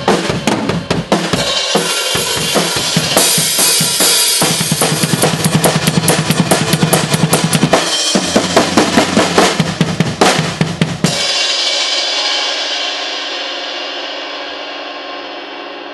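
Drum kit playing a recording take with rapid, dense snare, bass drum and cymbal hits, stopping about eleven seconds in on a final hit that rings on and slowly fades. The ending of this take is one the player says he fumbled.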